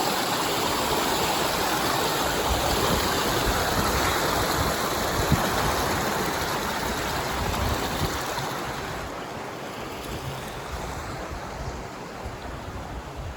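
Creek water rushing and splashing over rocks, a steady wash that grows fainter after about eight seconds.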